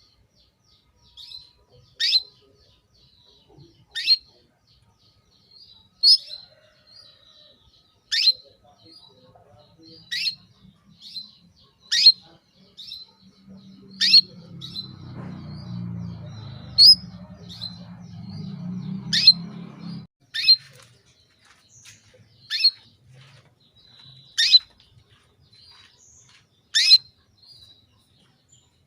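Female canary calling: sharp, loud chirps sweeping down in pitch, about one every two seconds, with softer short notes between. This is the call of a hen in breeding condition calling to a male. A low rumble runs under the calls for several seconds around the middle.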